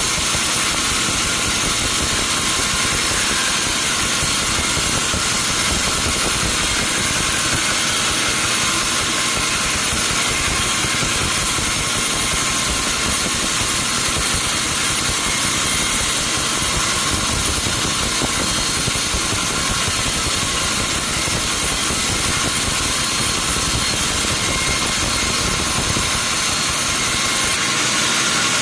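Sawmill machinery running steadily, a constant even noise with most of its energy in the high range.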